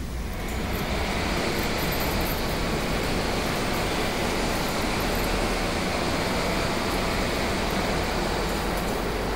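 Steady, even rushing noise that sets in about half a second in.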